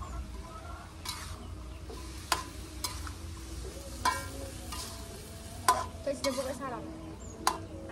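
Metal spatula stirring and scraping chopped eggplant and vegetables in a wok, with a faint frying sizzle and about six sharp clanks of the spatula against the pan.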